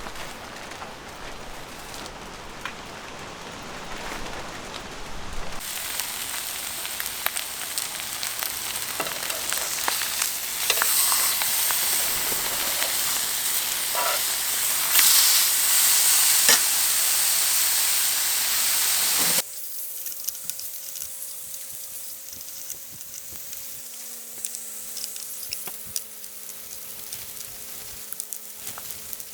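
Eel sizzling and crackling as it grills. The sizzle grows louder a few seconds in, then drops abruptly to a quieter sizzle about two-thirds of the way through.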